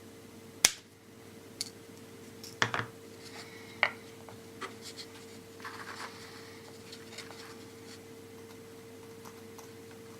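Small clicks, taps and scratching from hands working plastic and wood model parts on a workbench. A sharp click comes about half a second in, a few more follow over the next few seconds, and a short stretch of scratching comes around six seconds in, all over a faint steady hum.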